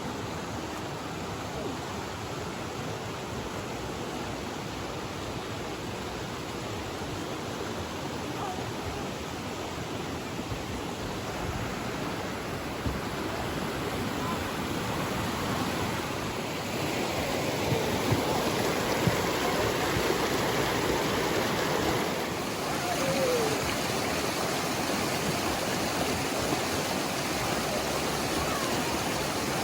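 Running water of a stream, a steady rushing that grows louder a little over halfway through.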